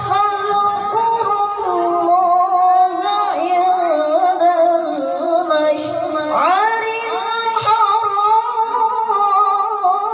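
A boy's voice reciting the Quran in the melodic tilawah style, amplified through a handheld microphone. It moves in long held, ornamented notes with winding pitch, and a new phrase opens with a rising swoop about six seconds in.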